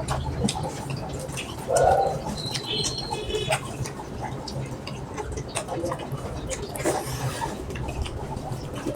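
Close-mic eating sounds: small wet clicks and smacks of chewing rice and mutton curry. A bird calls briefly about two seconds in: a short low coo followed by a quick high chirp.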